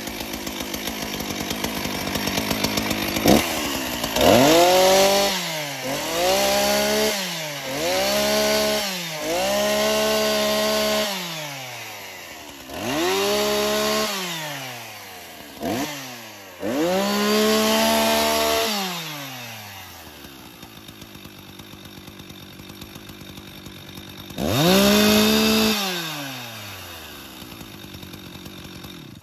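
Husqvarna 357XP 57cc two-stroke chainsaw idling, then blipped to full throttle about seven times, each rev rising, holding and falling back to idle, as it cuts into wooden pallet boards. It settles to a steady idle near the end.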